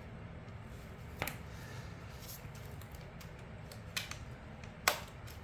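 A few sharp, small clicks of trimmer parts being handled and worked by hand, the loudest near the end, over a steady low hum.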